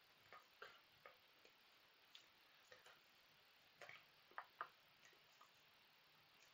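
Near silence broken by faint, scattered clicks and taps at uneven spacing, a pair of slightly louder ones a little past the middle.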